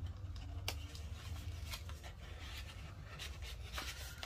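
Paper rustling and crinkling as the pages and tucked journaling cards of a handmade paper junk journal are handled and turned, with a few short crackles, over a steady low hum.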